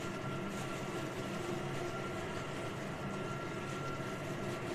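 Steady machine hum with several held tones, under faint rustling of a plastic glove rubbing marinade into a whole raw chicken.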